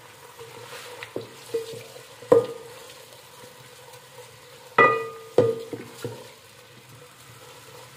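Sliced onions frying in hot ghee in an aluminium pot, a soft sizzle under the stirring of a wooden-handled spoon. The spoon knocks against the pot about six times, each knock ringing briefly, the loudest a little past two seconds in and just before five seconds.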